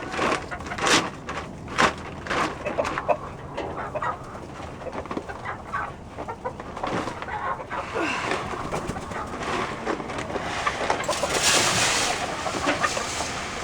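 Chickens clucking as they crowd in to be fed, with sharp clicks in the first few seconds and a rustling hiss about eleven seconds in.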